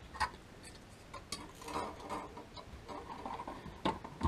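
Hard plastic drone gear being picked up and set down on a desk: scattered light clicks and knocks, with two sharper knocks near the end.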